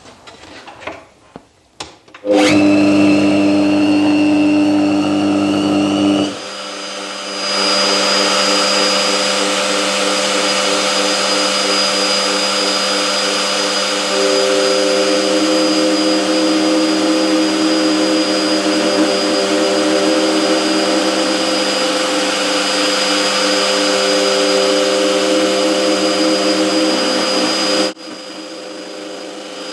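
Router fitted with a twin V-groove bit, switched on about two seconds in and running steadily with a high whine as it cuts the first thread inside a wooden nut in a threading jig. The sound dips briefly about six seconds in and drops in level near the end.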